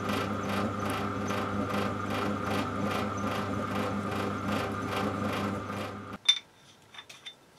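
Drill press running at slow speed with a 12 mm reamer turning through a hole in an aluminium block: a steady motor hum with a regular pulse of about three a second. It stops abruptly about six seconds in, followed by a sharp knock and a few faint clicks.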